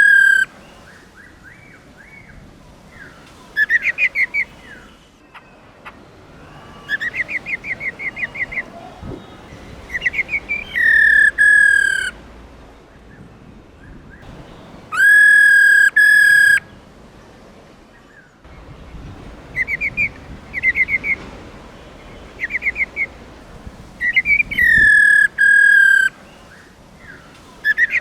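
Female black-throated laughingthrush calling: loud, clear whistled notes held for about a second each, three or four times, alternating with quick runs of short, rapidly repeated notes.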